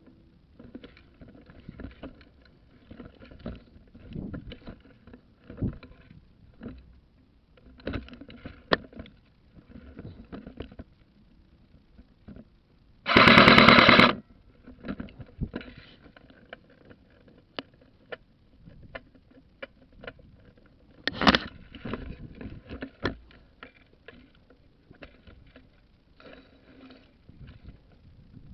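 Airsoft gun firing a full-auto burst of rapid, evenly spaced shots for about a second, near the middle; a second, shorter burst follows some eight seconds later. In between come faint knocks and rustling.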